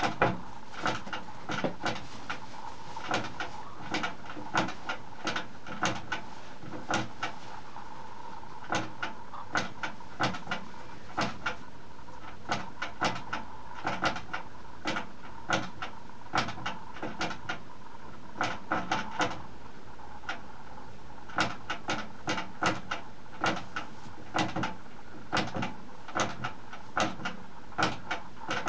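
Guinea pigs making short repeated chutting calls, about one or two a second at an irregular pace, over a faint steady tone.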